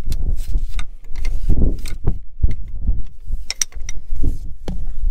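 Hand tools working on metal bolts on a tractor engine: irregular metallic clicks and clinks over a steady low rumble, with a few sharper clinks about three and a half seconds in.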